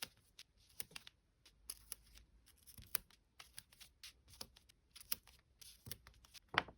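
Peppa Pig sticker packs and sticker sheets handled close to the microphone: irregular crinkles, light taps and paper rustles, growing busier and louder near the end.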